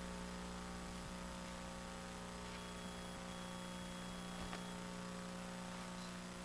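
Steady electrical mains hum, with a couple of faint taps about four and a half seconds in.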